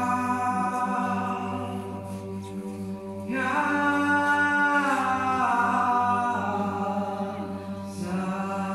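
Orthodox liturgical chant sung unaccompanied: a steady held note runs underneath while a melody voice enters louder about three seconds in and slides downward in pitch.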